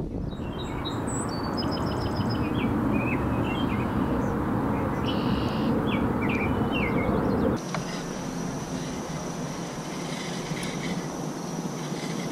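Small birds chirping in many short high calls over a steady noisy rumble. About seven and a half seconds in the rumble cuts off abruptly, leaving a quieter background with a steady high hum.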